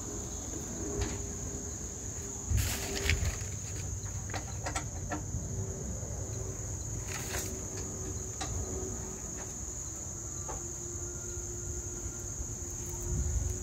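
Insects trilling steadily at a high pitch, with a few knocks and rustles about three and seven seconds in.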